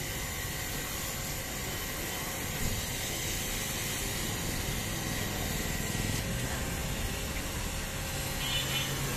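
Pressure washer running, its water jet spraying steadily on a fat bike's frame and tyres with an even hiss.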